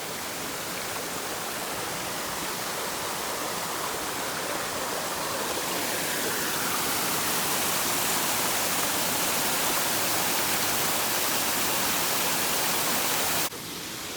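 Waterfall spilling over an old sawmill dam, running low after little rain: a steady rush of falling water that grows gradually louder, then drops off suddenly near the end.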